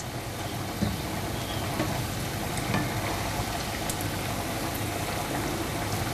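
Breadcrumb-coated hara bhara kebabs deep-frying in hot oil: a steady sizzle with a few faint crackles.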